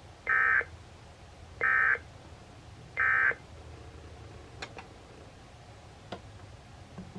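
Emergency Alert System end-of-message tones on NOAA Weather Radio: three short, identical bursts of warbling digital data about a second and a half apart, the 'NNNN' signal that closes the Required Weekly Test broadcast. A few faint clicks follow over low hiss.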